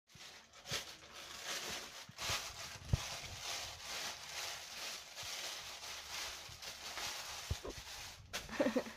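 Thin plastic carrier bag crinkling and rustling as a kitten shifts inside it, with scattered sharp crackles. Near the end comes a short cry.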